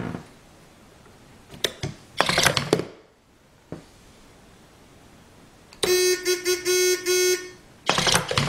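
Upgraded wooden useless box at work: sharp clicks from its switch and mechanism, and short bursts of motor whirring as the lid lifts and the arm comes out. Midway there is a stuttering horn-like tone, beeping in quick pulses for about a second and a half.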